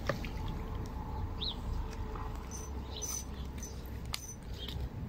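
Outdoor ambience: a few short, faint bird chirps over a low, steady rumble, with scattered light clicks.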